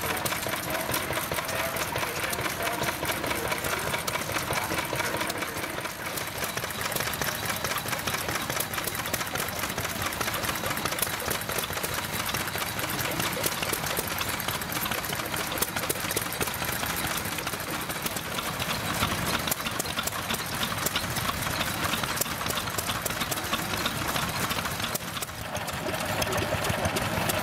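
Small vintage stationary engines running, a fast, even mechanical clatter of firing and moving parts, the mix changing twice as one engine gives way to the next.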